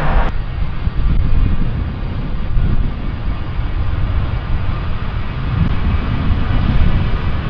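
Airliner engine noise: a loud, low, steady rumble. Higher-pitched engine tones cut off abruptly just after the start.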